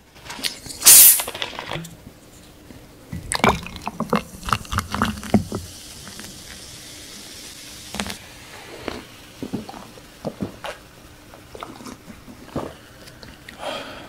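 A plastic cola bottle's cap is twisted open with a sharp hiss of escaping carbonation about a second in. The cola is then poured over ice into a glass, splashing and fizzing, with scattered clicks and knocks of the bottle and glass.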